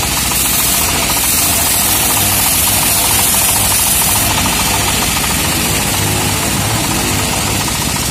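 A homemade bandsaw mill runs steadily with a loud machine drone. Its band blade cuts lengthwise through a teak log with a high hiss, which drops away about four seconds in.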